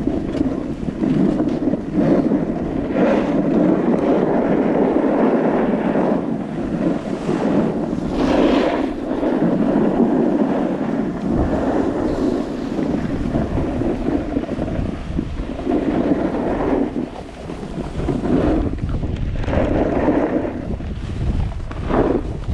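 Wind rushing over the camera microphone during a run down a snow slope, mixed with the hiss and scrape of edges sliding on snow, swelling and easing every few seconds.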